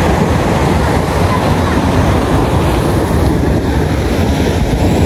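Wind blowing across the phone's microphone, a loud steady rush with heavy low buffeting.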